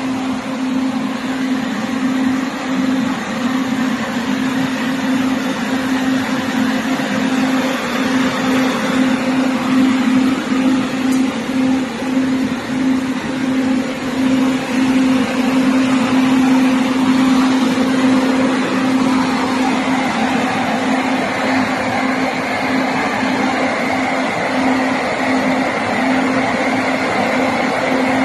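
Corn dryer's large axial fans running: a steady, even rush of air over a constant droning hum.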